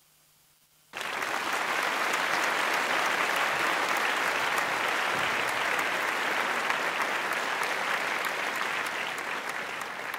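Crowd applause and cheering played back as a sample from a Roland SP-404 sampler, starting suddenly after about a second of near silence and cutting off abruptly near the end.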